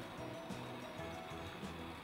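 Background instrumental music, its bass notes changing about every quarter to half second.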